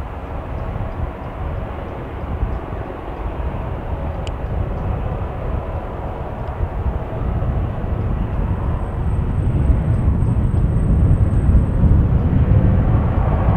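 Airbus H145 helicopter hovering low and close, a steady mix of main-rotor and turbine noise that grows louder in the second half as it comes nearer and lower.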